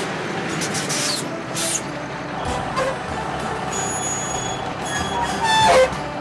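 A large truck running, with bursts of high hiss in the first couple of seconds and a louder, pitched squeal near the end.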